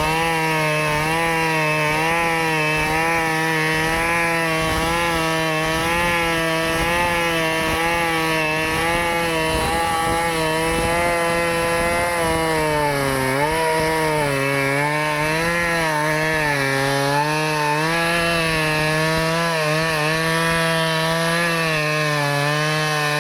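Stihl chainsaw running at high revs while cutting a tree. Its pitch holds steady at first, then from about halfway through it dips and recovers several times as the engine bogs under the load of the cut.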